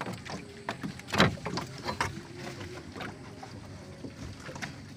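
Knocks and bumps of gear being handled in a small wooden canoe, with one heavier thump about a second in.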